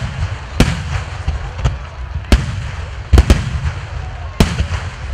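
Large aerial firework shells, 12-inch shakudama, bursting in quick succession: about seven sharp bangs, some in close pairs, over a steady low rumble.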